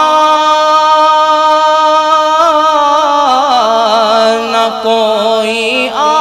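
A man singing a naat in a chanting style, holding one long steady note for about two and a half seconds, then winding through ornamented turns of pitch before starting a new phrase near the end.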